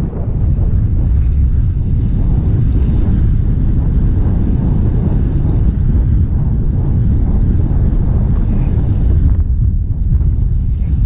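Strong wind buffeting an action camera's microphone: a loud, steady low rumble over the wash of breaking ocean surf.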